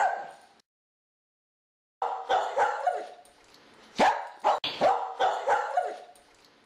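A dog barking repeatedly, about three or four barks a second. The sound drops out completely for over a second near the start, then the barking picks up again.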